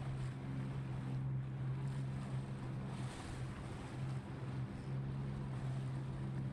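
Boat engine running at a steady low pitch, over wind buffeting the microphone and the wash of choppy water.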